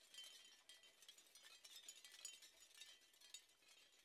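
Near silence, with faint high tinkling ticks.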